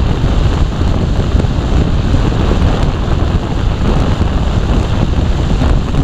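Wind buffeting the microphone of a camera on a moving motorcycle: a steady, loud low rush with the vehicle's riding noise underneath.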